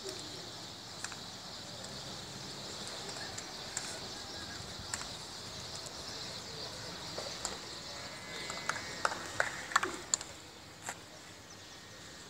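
Open-air ambience at a football ground: a steady high hiss with scattered sharp knocks and faint distant voices. The knocks come thicker from about two thirds of the way in.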